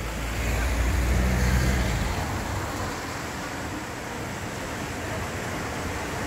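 Road traffic passing close by: a vehicle's low engine hum is loudest over the first two seconds, then a van and a car drive past with steady road noise.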